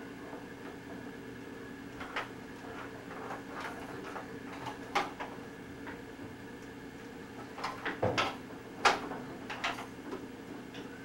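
Scattered sharp plastic clacks and knocks from a baby batting and banging the toys on a baby walker's tray, over a steady low hum. They are loosely spaced, with a quick cluster a little before the eight-second mark and the loudest knock just after it.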